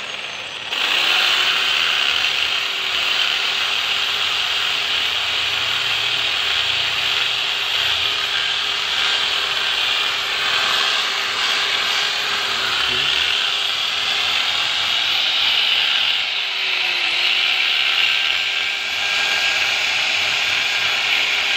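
Electric hand drill running steadily, its bit cutting into a wheel rim's stud hole to enlarge a hole that was too narrow for the studs. The motor starts about a second in and its pitch sags briefly once past the middle.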